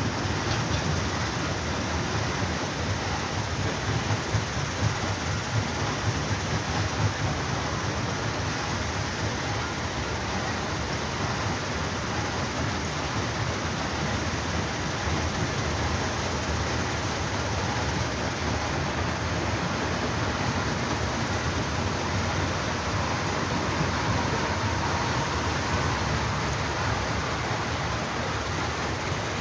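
Heavy construction machinery running steadily, a continuous rough, noisy rumble with a few small louder knocks in the first third.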